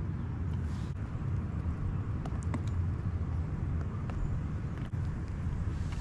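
Wind buffeting the microphone, a steady low rumble that rises and falls, with a few faint light ticks.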